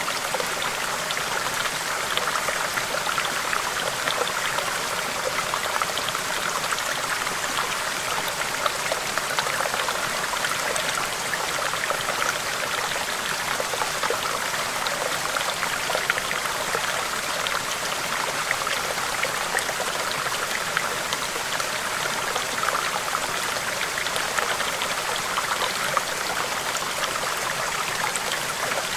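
Stream babbling over rocks: a steady rush of running water, flecked with small splashes.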